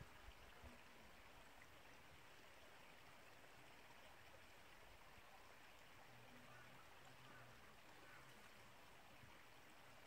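Near silence: the faint, steady hiss of a distant stream.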